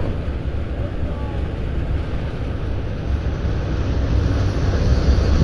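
Steady rush of river water with low wind rumble on the microphone.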